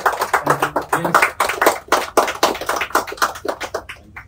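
A small group clapping: many quick, uneven claps that thin out and fade away near the end.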